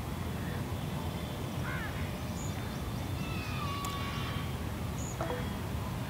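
Outdoor ambience with a low steady hum; a crow caws faintly about two seconds in and again about five seconds in.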